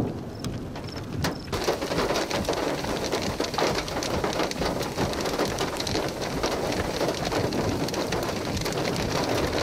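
Rain falling, with many individual drops striking close to the microphone. It is light for the first second and a half, then turns to a steady heavy rain.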